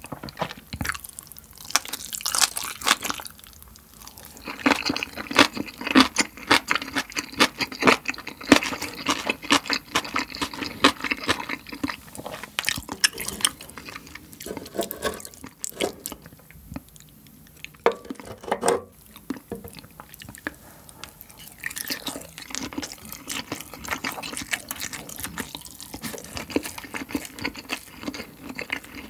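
Close-miked eating of kimchi and grilled Spam with rice: wet chewing, crunching and lip-smacking mouth sounds, made up of many quick clicks and squelches.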